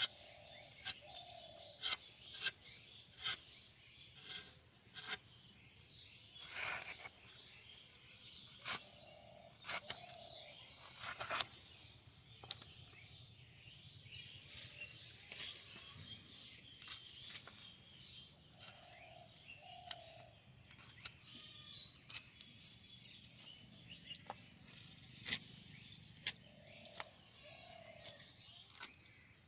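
Vegetables being cut by hand: irregular sharp chops of a blade through vegetables, roughly one a second. Birds chirp in the background, and a low two-note bird call repeats four times.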